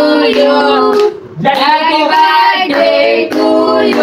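Singing in high voices with long held notes, breaking off briefly about a second in.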